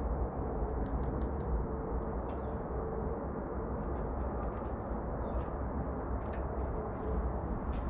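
Steady low background rumble, with scattered light ticks and a few brief, very high chip notes from small songbirds about three to five seconds in.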